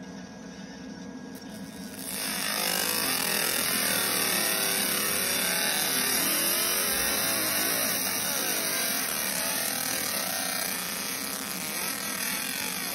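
Laser marking machine engraving a design into a black metal card case: a steady hiss with fast warbling tones, starting about two seconds in after a quieter stretch.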